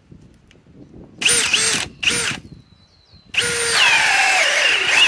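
Milwaukee M18 Fuel Gen 4 cordless drill boring through wood with a 1¼-inch speed bore spade bit on speed 2. Two short bursts first, then a continuous run from about a third of the way in, its whine dropping in pitch as the motor loads up under the cut, then holding steady.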